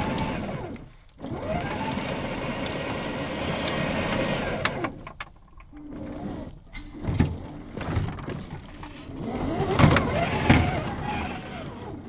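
Tamiya CC01 RC car's electric motor and gearbox whining, its pitch rising and falling as the throttle is worked, with tyres scrabbling on loose dirt and gravel and small stones clicking. There are a few sharper surges in the second half as it pulls up the slope.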